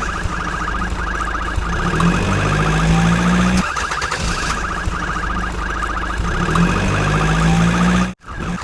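Electronic alarm sounding: fast, even pulsing chirps over a low steady drone. It cuts off suddenly near the end.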